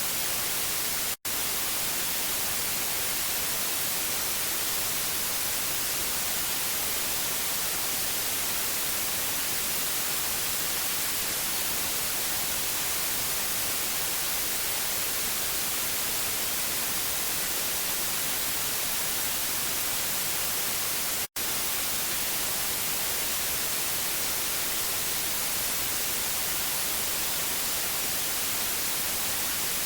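TV static: a steady white-noise hiss, strongest in the treble. It cuts out for a split second twice, once near the start and again about two-thirds of the way through.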